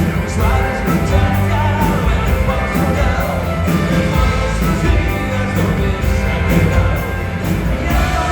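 Rock band playing with a singer, over a steady drum beat and bass.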